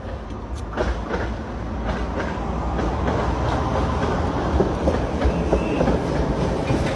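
Loud rumbling noise that grows louder over the first few seconds and then holds, with a few scattered clicks.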